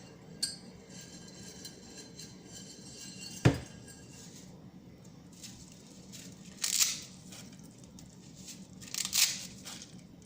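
Dry noodles being snapped by hand into small pieces, with short bursts of crackling about two-thirds of the way through and again near the end. One sharp knock about three and a half seconds in.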